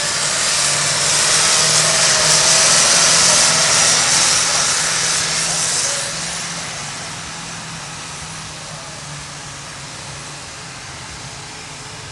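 Tractor engine working hard at full load while pulling a weight-transfer sled, with a loud hiss over it that cuts off about six seconds in. After that the engine sound fades steadily as the tractor moves away down the track.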